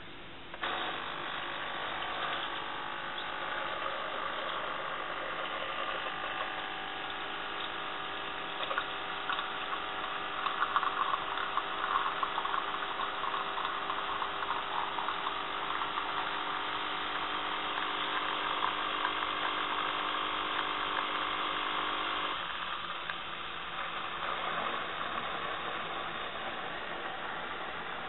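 Philips Senseo Quadrante HD7860 pod coffee machine brewing two cups: its pump hums steadily with a hiss of coffee streaming from the twin spout, starting half a second after the button is pressed, with louder irregular spurts around ten to twelve seconds in. The hum stops about 22 seconds in as the brew ends, leaving a fainter hiss.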